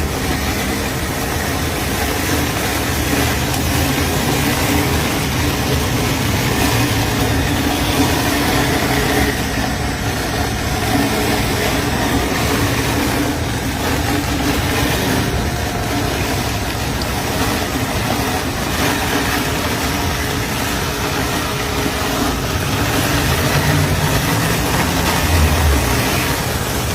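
A motor running steadily, with an engine-like low hum under a constant noisy whir.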